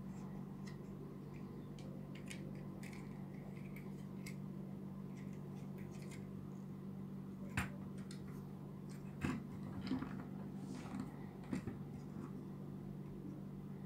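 Small clicks and taps of a plastic transforming robot figure's joints and panels being moved and snapped into place by hand, with a few louder snaps from about halfway through, over a steady low hum.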